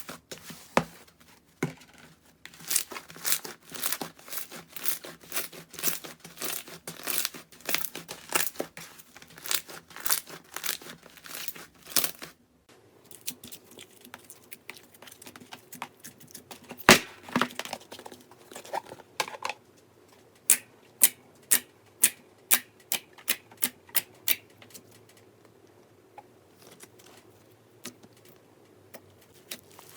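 Slime being squeezed and stretched close to the microphone, making a dense run of crackles and snaps; after a cut it turns sparser, with a regular series of sharp pops, about two or three a second.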